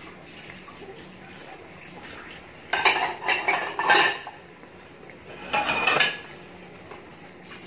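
Dishes and metal cutlery clattering in two bursts, about three seconds in and again at about five and a half seconds, over the faint bubbling of a stir-fry sauce simmering in a wok.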